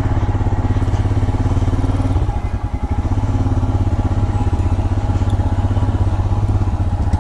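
Royal Enfield Himalayan's single-cylinder engine running under way, with a steady low pulsing note; the throttle briefly eases off a little over two seconds in, then picks up again.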